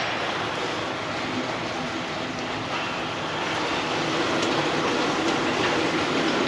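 Steady mechanical rumble and hiss of a busy truck service bay, coming in through the open cab door; a faint hum joins about two and a half seconds in.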